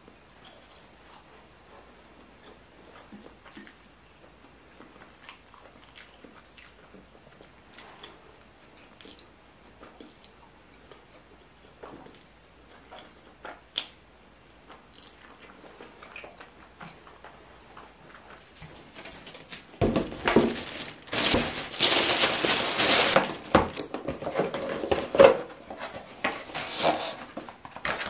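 Faint eating sounds: chewing black bean noodles, with small clicks of metal chopsticks against a ceramic plate. About twenty seconds in, much louder rustling and crinkling of cardboard boxes and paper packaging as they are opened and handled.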